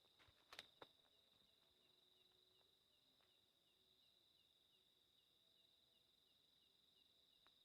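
Faint night insects: a steady high-pitched cricket trill with a soft chirp repeating about three times a second. There are a couple of soft clicks or steps just under a second in.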